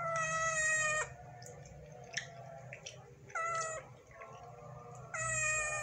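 A cat meowing three times, each call drawn out and level in pitch: the first about a second long, the next two shorter.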